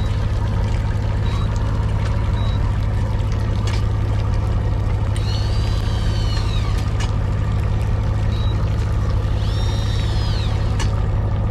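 Boat engine running steadily with a low drone. Twice, a high whine rises and falls over about a second and a half, with a few light clicks in between.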